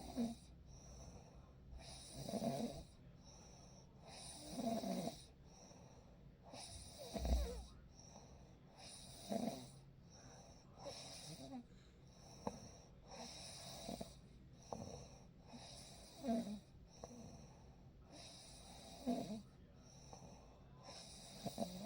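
A person snoring steadily in sleep, a rasping snore about every two to two and a half seconds, with soft breathing between.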